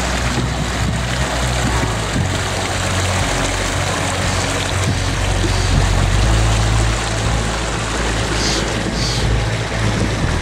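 Shallow creek flowing over rocks: a steady rush of water with a deep rumble underneath.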